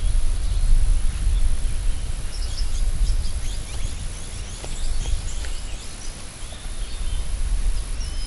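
Wind buffeting the microphone in a fluctuating low rumble, with many birds chirping and whistling in the background, busiest from about two seconds in.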